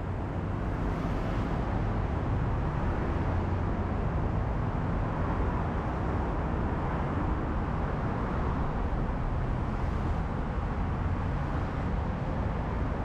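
Steady road traffic noise from cars passing on a multi-lane city road, a constant low rumble with no single event standing out.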